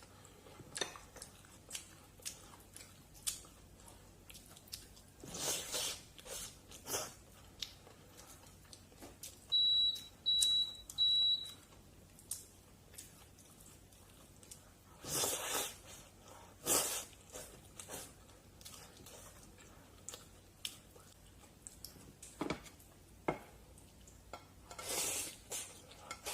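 Close-up eating sounds of somen noodles in jjajang sauce: slurps and chewing, with light clicks of utensils against the bowl. Three short high beeps come about ten seconds in.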